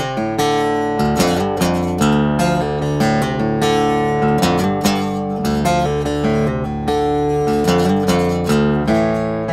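Outro music: acoustic guitar playing a steady, rhythmic strummed and plucked pattern.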